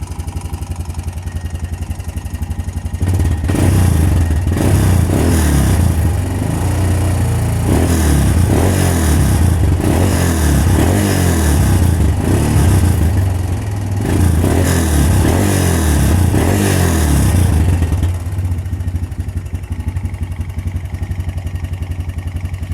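2005 Honda Recon ATV's single-cylinder four-stroke engine running just after a cold start. It idles, then from about three seconds in is revved in repeated surges for about fifteen seconds, and drops back to idle near the end. Under it is a clatter that the owner puts down to a worn timing chain and oil pump chain.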